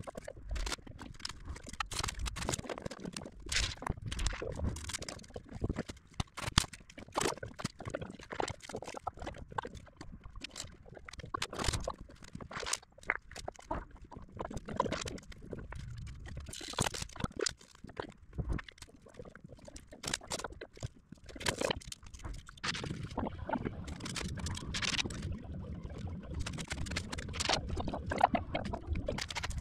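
Irregular knocks, taps and scrapes of hand work fitting Styrofoam insulation boards, mixed with footsteps on the concrete roof slab.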